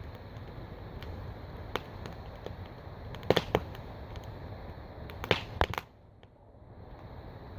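Wood fire burning in a steel wheel-rim fire pit, crackling with scattered sharp pops over a steady background noise. The loudest pops come in two quick clusters, a few seconds in and again a little later.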